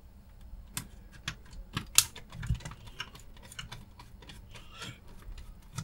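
Light, irregular clicks and taps from a screwdriver and the modulator's metal case being handled while a missed screw is taken out.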